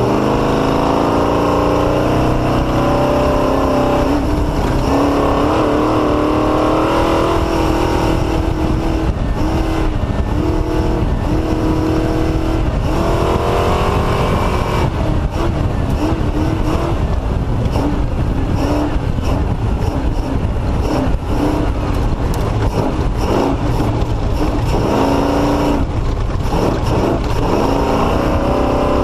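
Off-road race vehicle's engine revving up and down over and over as it works through slow, rough going, with frequent knocks and rattles from the rough ground.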